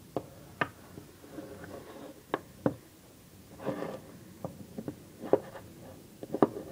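Irregular sharp clicks and light knocks, about ten of them, from an antique top-break revolver being handled and turned over in the hand, with a brief rustle midway.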